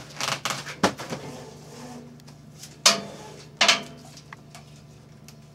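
A few sharp clicks and knocks from the strap being handled at the side of a strapping machine, the two loudest about three seconds in, over the machine's steady low hum.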